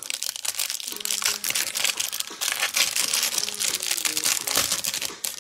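Trading-card hanger packaging crinkling and crunching as it is torn open and handled, a steady run of small crackles, over quiet background music.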